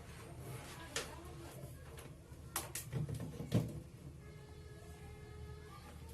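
A few sharp clicks and light knocks of small tools or parts being handled on a workbench, over a steady low hum.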